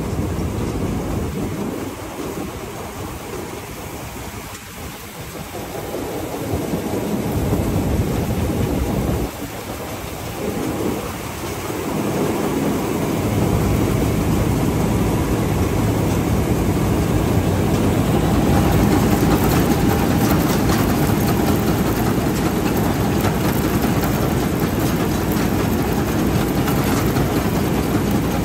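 Somboonpattana tracked combine harvester running, a heavy engine-and-machinery rumble with a lot of noise in it. It dips twice in the first dozen seconds, then runs louder and steady from about thirteen seconds in.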